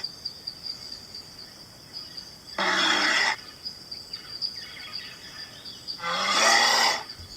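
Recording of a black bear calling: two short rough calls, each about a second long and some three seconds apart, with a steady high whine in the background.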